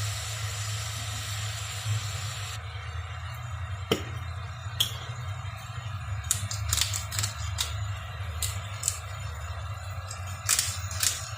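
A steady hiss that cuts off about two and a half seconds in, followed by scattered clinks and taps of kitchenware being handled, over soft background music.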